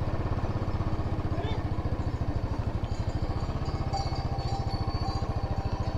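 Motorcycle engine running at a steady speed while riding, an even, rapid pulsing of engine firing that holds constant.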